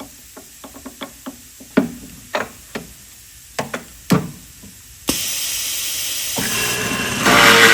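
Light clicks and knocks as wooden pieces and tools are handled, then about five seconds in a power saw starts running, growing louder near the end as it cuts into wood.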